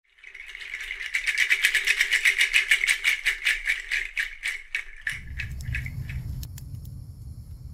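A rapid pulsing rattle, about six pulses a second, swells and then fades away over the first five seconds. At about five seconds a low rumbling ambience with a faint steady high hiss takes over.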